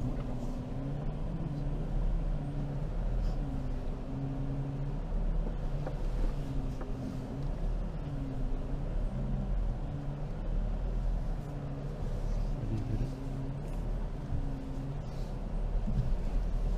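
Jeep Compass Trailhawk's 2.0-litre turbo-diesel engine heard from inside the cabin while driving a dirt off-road track, over a steady low rumble. Its note rises and falls repeatedly as the throttle is worked.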